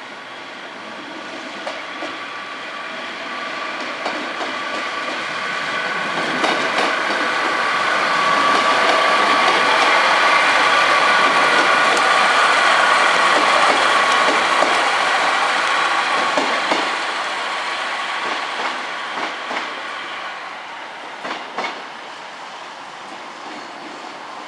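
A train passing by. It grows louder over the first several seconds, holds loudest for several seconds with a steady whine, then fades away. Clicks from the wheels crossing rail joints come through the pass and near its end.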